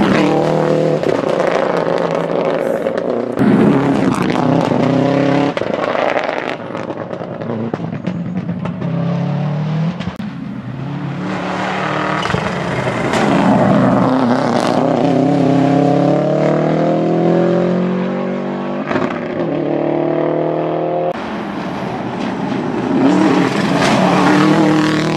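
Subaru Impreza GT Turbo's turbocharged flat-four rally engine at full throttle as the car passes at speed. Its note climbs in pitch several times as it pulls through the gears, in several short passes cut together, each starting abruptly.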